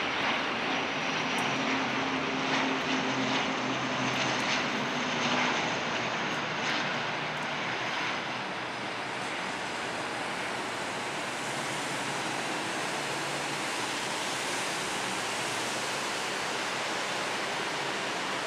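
Dornier 328 turboprop airliner on landing approach: its propellers and engines drone with low steady tones for the first five seconds or so. The sound then settles into an even rushing noise as the aircraft moves away toward the runway.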